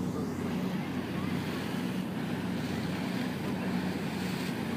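Tokyo Mizube Line water bus under way: its engine running with a steady low hum, and water rushing past the hull.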